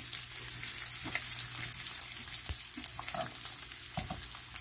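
Pepperoni slices sizzling as they fry crisp in a frying pan, with a few light clicks of metal tongs against the pan as the slices are turned.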